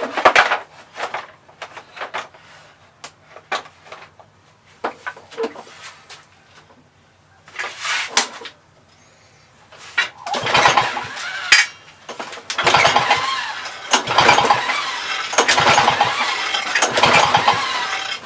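Tools and parts clicking and knocking, then from about ten seconds in the Lawn Boy two-stroke mower engine being cranked over and over on its pull-start recoil without catching: it gets no spark or fuel to fire, even after the coil air gap was reset.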